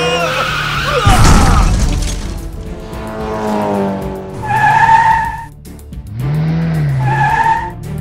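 Cartoon sound effects of a runaway race car: a loud crash about a second in as it smashes through a concrete wall, with tyre screeching, over background music. Two held, horn-like tones sound in the second half.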